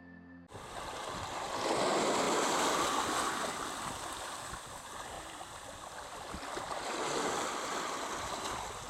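Sea water rushing and washing, swelling about two seconds in and easing off.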